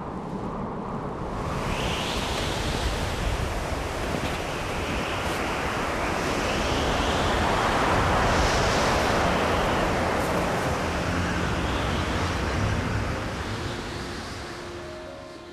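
Snowstorm wind blowing hard, a rushing noise that swells to its loudest about halfway through and dies away near the end.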